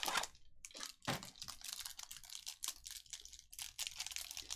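Trading cards being handled and flipped through by hand: a quick run of light clicks and rustles from the glossy card stock, with a slightly louder tap at the start and another about a second in.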